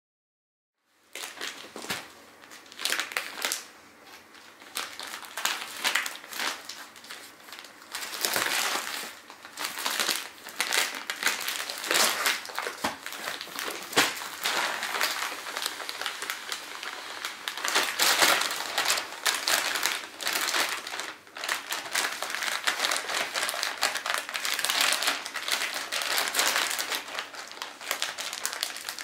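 Plastic compression bags crinkling and rustling as they are handled and pressed around a packed sleeping bag. It starts about a second in and continues with many sharp crackles.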